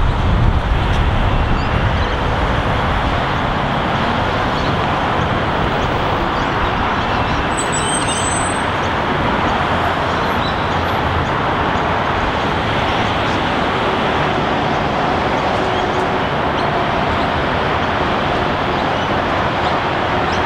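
Steady roar of road traffic mixed with a container freight train rolling across a river bridge, its low rumble easing after the first couple of seconds as the wagons pass. A brief high squeal is heard about eight seconds in.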